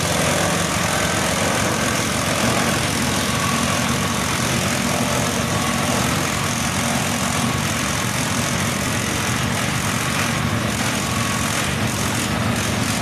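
Motorised grass chopper (pencacah rumput) driven by a small stationary engine, running steadily while green grass stalks are fed in and chopped into fodder.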